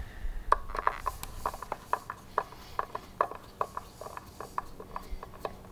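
Phillips screwdriver turning pickguard screws out of a bass guitar body: a run of short, irregular clicks and ticks, about three a second.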